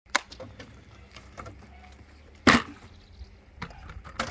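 Large plastic water jugs being handled at a car's open back door: scattered knocks and clicks, with one loud thump about halfway through.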